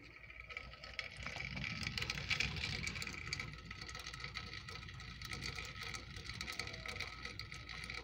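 Light rain falling outdoors: a steady hiss dotted with many small ticks, growing louder about a second in, over a low rumble.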